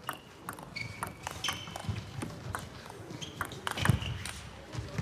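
Table tennis rally: the celluloid ball clicks irregularly off bats and table in quick exchanges, with a heavier thump a little before four seconds.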